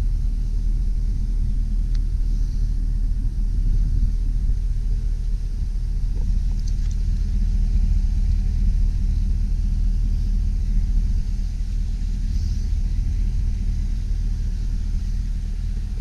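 The 2003 GMC Sierra 2500HD's 6.0-litre gasoline V8 idling steadily, a low even rumble heard close to the truck.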